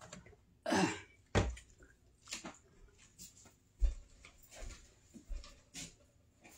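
Scattered knocks and thumps of things being handled in a kitchen, the loudest about four seconds in.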